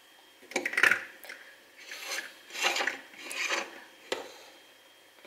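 Scraping and rubbing of plastic popsicle holders and a plate being handled and shifted: about five rasping scrapes in quick succession, then a sharp click about four seconds in.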